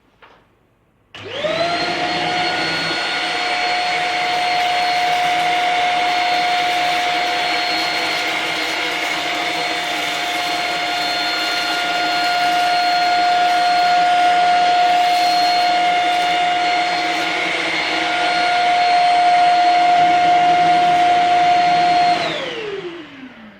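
Shark Rocket corded stick vacuum switched on about a second in. It runs with a steady high whine while cleaning a hard floor with its Dust-Away attachment. Near the end it is switched off, and its motor winds down in a falling whine.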